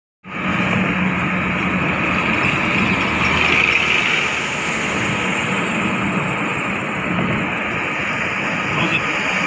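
Road traffic heard from a moving car: a steady rush of tyre, wind and engine noise as it passes close beside a truck, starting abruptly a moment in.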